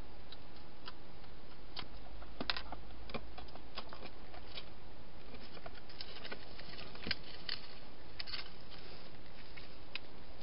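Irregular small clicks and crackles from a wild hedgehog moving about and feeding in and around a plastic feeding box, over a steady hiss.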